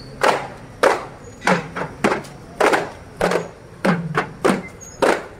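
Hand-struck daf frame drums played together in a marching rhythm: sharp slaps about twice a second, some in quick pairs, a few with a short low boom after the hit.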